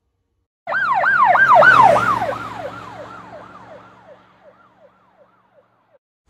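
Siren in a fast up-and-down yelp, about three rises and falls a second, loud at first and then fading away over several seconds, with a faint low hum beneath.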